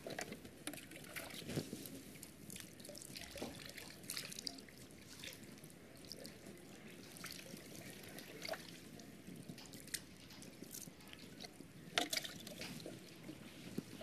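Water being scooped and poured with a mug in a plastic bucket: irregular trickles, drips and small splashes, with a sharper splash about twelve seconds in.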